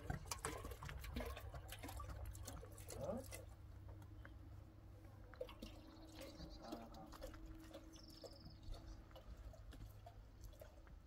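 Water poured from a plastic jug into a small kettle, trickling and splashing for the first few seconds. A short high chirp follows about eight seconds in.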